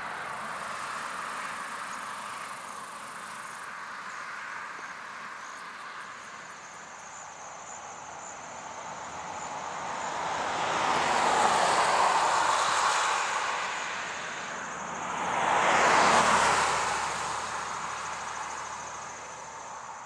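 Cars passing on a two-lane road. Tyre and engine noise swells up and fades as one car goes by, then a second car follows close behind a few seconds later.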